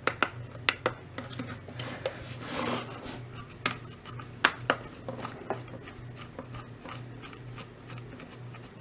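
Plastic push-buttons on an Emerson Research CKW2000 weather radio being pressed one after another: a string of irregular clicks with some handling rubs, over a faint low hum.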